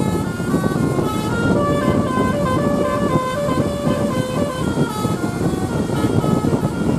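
A bus's basuri melody horn, the musical telolet-style horn of Indonesian buses, playing a tune of quick stepping notes over loud low background noise.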